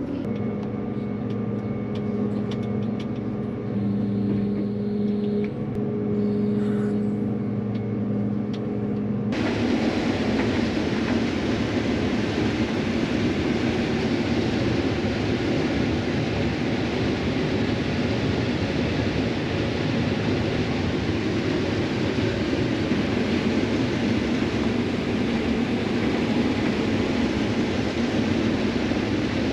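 Farm equipment's engine running steadily while being driven on the road. About nine seconds in, the sound changes abruptly to a loud, even rushing rumble of travel noise that covers the engine hum.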